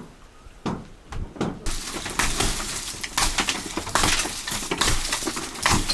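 Dry maize leaves and stalks crackling and rustling, with many sharp snaps, after a few separate knocks in the first second or so.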